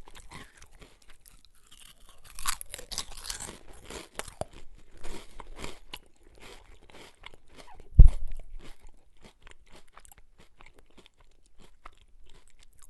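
A person chewing potato chips with crisp crunching and crackling. There is a louder run of crunches about two and a half seconds in and one sharp, heavy crunch about eight seconds in, then the chewing thins out to small crackles near the end.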